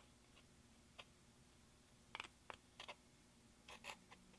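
Metal spatula scraping and breaking up a pan of pressed gold eyeshadow: short, dry scratches and clicks, single ones at first and quicker clusters in the second half.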